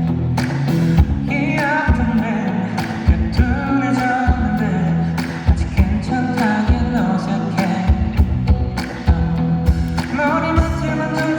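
Pop song performed at a concert: a singer's voice carrying the melody over a backing track with bass and a steady drum beat.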